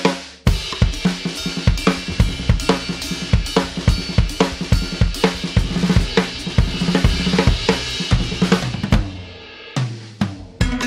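Music with a steady drum-kit beat of kick, snare, hi-hat and cymbal hits. The beat drops away about nine seconds in, and a new section starts near the end.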